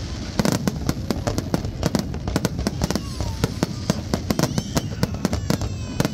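Aerial fireworks display: rapid, overlapping bangs and crackles of bursting shells, several every second, over a constant low rumble.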